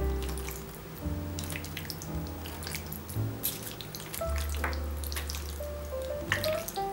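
Raw beef and egg yolk being stirred with chopsticks: irregular wet squelching and small clicks, over light background music.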